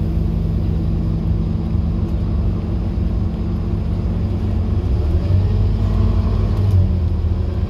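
Scania N230UD OmniCity bus's diesel engine under way, heard from inside the cabin, with a steady low drone; the engine note changes about five seconds in, as the gearbox shifts. The bus is described as very tired, with long gears.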